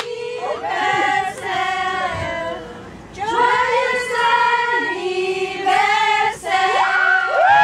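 A group of people singing a birthday song together, with long held notes near the end.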